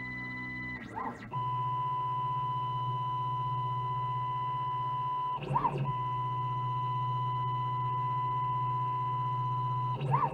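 CNC router axis drive motors whining at a steady pitch during a slow probing move, broken twice by a short rising-and-falling whine as the machine speeds up briefly and slows again.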